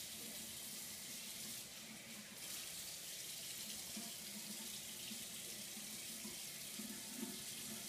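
Bathroom sink tap running steadily into the basin as a face is rinsed off.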